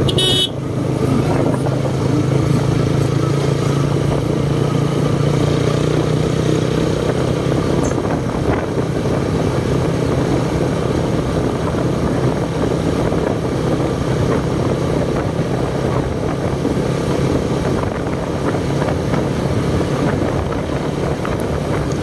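Motorcycle engine running steadily under way, with road and wind noise around it. A brief high-pitched tone sounds about half a second in.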